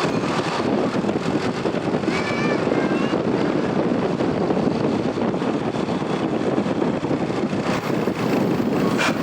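A bus's diesel engine running with a steady rumble, with a few faint short high tones about two seconds in and a sharp click near the end.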